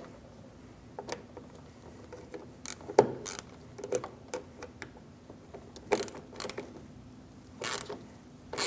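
Hand ratchet with a T25 Torx bit working the door-handle bolt: scattered metallic clicks and a few short ratcheting rasps at irregular intervals.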